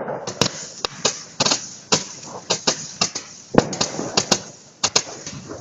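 Consumer fireworks battery firing: a rapid, irregular string of sharp cracks and bangs, a few of them heavier booms.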